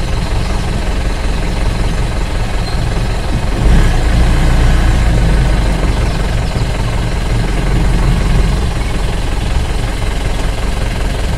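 Safari jeep's engine running at low speed as the jeep backs slowly away, growing louder about four seconds in.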